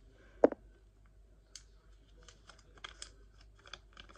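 Handling a Kinder Surprise toy and its small folded paper instruction sheet: one sharp click about half a second in, then a run of small ticks and paper crinkles as the sheet is unfolded.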